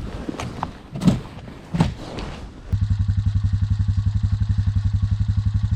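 A few knocks over wind noise, then, about three seconds in, a small engine is suddenly heard idling with a fast, even throb.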